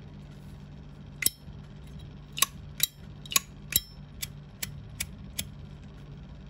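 Zippo lighter's metal lid being flicked open and snapped shut over and over: about nine sharp metallic clicks, roughly two to three a second, starting about a second in, over a steady low hum.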